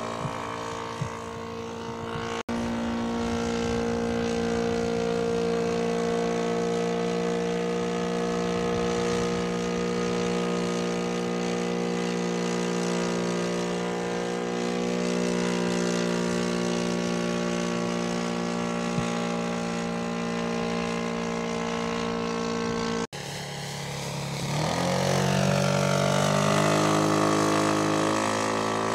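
Engine and propeller of a quarter-scale SE5a model biplane in flight, running steadily. About 23 seconds in, the sound cuts briefly, then the pitch shifts and it grows louder as the plane comes closer.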